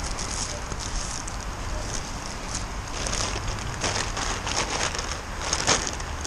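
Plastic bags and packaging rustling and crinkling as they are handled, busiest in the second half, over a steady low rumble.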